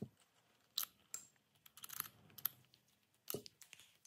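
About half a dozen light clicks and taps as the aluminium housing of a BMW motorcycle ABS pump and its small removed parts are handled, with the sharpest ones just under a second in, about two and a half seconds in and near the end.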